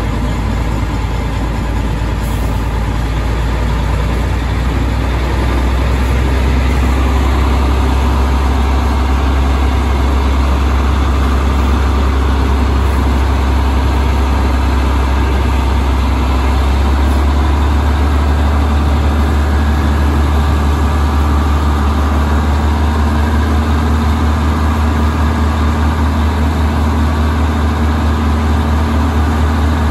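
Diesel engine of a 65-ton Vulcan switcher locomotive running as it pulls a caboose, with a strong steady low hum. It grows louder about five to seven seconds in and then holds steady.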